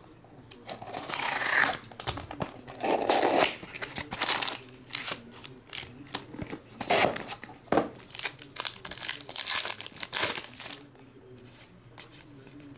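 Foil trading-card packs crinkling and being torn open by hand, in a run of irregular crackles and rips, along with a cardboard box being opened. The noise dies down to a faint rustle near the end as the cards are handled.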